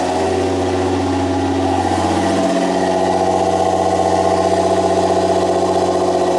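Nissan GT-R R35's twin-turbo V6 idling steadily through an Armytrix aftermarket exhaust, just after a cold start.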